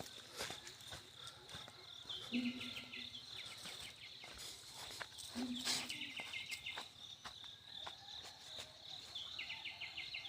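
A bird calls over and over, about every three seconds. Each call is a short low note followed by a quick rattling run of higher notes. Under it runs a steady high insect drone, with scattered small clicks and knocks.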